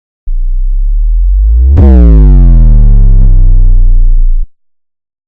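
Loud synthesized sound effect: a steady deep bass drone, then a sharp hit about two seconds in that sets off a tone sliding down in pitch. It cuts off suddenly after about four seconds.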